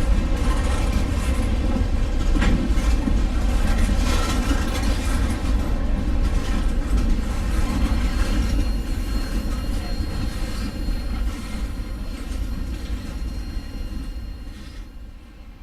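Empty coal hopper cars of a freight train rolling past with a steady rumble and wheel clatter, with a faint high wheel squeal in the middle. The sound fades over the last six seconds or so as the train moves away.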